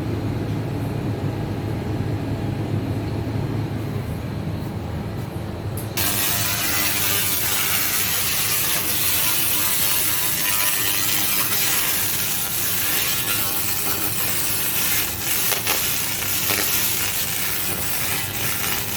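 1000 W laser cleaning machine firing: a loud, even hiss starts suddenly about six seconds in and keeps going, over a low machine hum that is there throughout.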